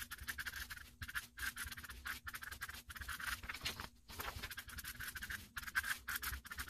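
Felt-tip marker writing block capitals on paper: a run of short scratchy strokes, one after another, with brief pauses between letters.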